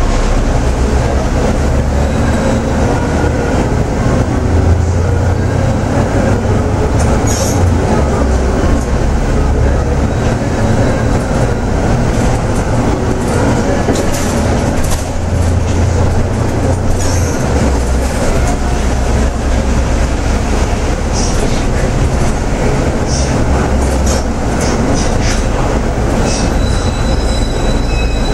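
Cabin sound of a Yutong ZK6110HGV city bus on the move: the Yuchai YC6G220P-30 six-cylinder diesel drones low under the floor, its note swelling and dropping back several times as the bus pulls away and eases off. Brief rattles and clicks from the body come and go over the steady rumble.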